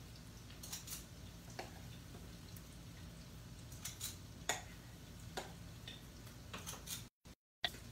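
Scattered light clinks and taps of kitchen utensils against dishes, about a dozen spread through, over a steady low hum. The sound cuts out completely for a moment near the end.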